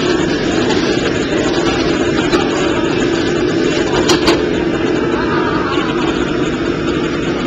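Steady noise of a gas wok range burner under a wok, with a metal ladle clinking against the wok a few times about four seconds in.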